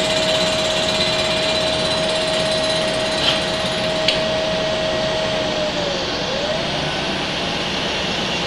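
Vertical milling machine's cutter skimming the face of a cast iron diesel exhaust manifold under table feed: a steady grinding hiss with a steady whine that dips in pitch about six seconds in and then comes back up. Two short sharp ticks sound about three and four seconds in.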